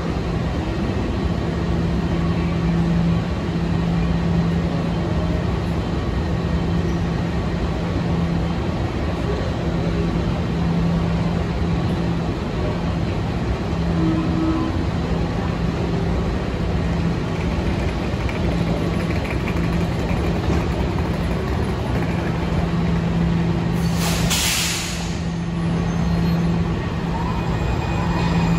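Washington Metro Red Line train running with a steady rumble and a low hum that cuts in and out every second or two, and a short hiss of air about 24 seconds in.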